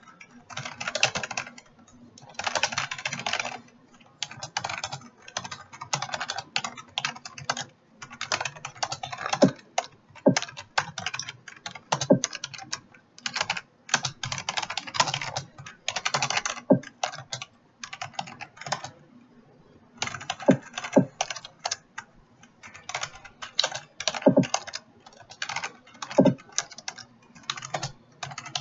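Fast typing on a computer keyboard: rapid runs of key clicks in bursts, broken by short pauses, with one longer pause of about a second about two thirds of the way in.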